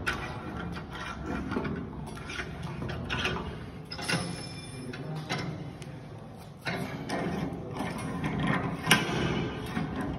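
Stainless-steel screw clamps on a steam cooking mixer's lid being spun down by hand and locked tight to seal the lid against steam leaks: a rough, ratcheting run of metal-on-metal clicking, with sharper clicks now and then.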